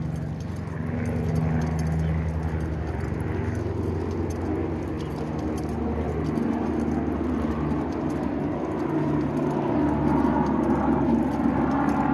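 Motor vehicle engines running steadily in a road work zone. A low engine hum runs throughout, and a rougher, louder mid-range engine sound builds in the second half.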